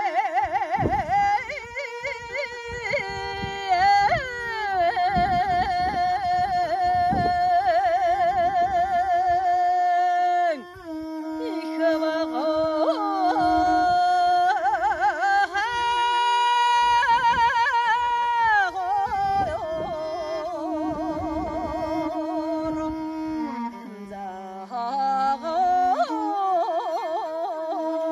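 Mongolian long song (urtyn duu) sung by a woman, with long held notes decorated by rapid warbling ornaments, accompanied by a bowed morin khuur (horsehead fiddle) underneath. The voice breaks off briefly a third of the way through and then begins a new phrase. The melody steps down to lower notes near the end.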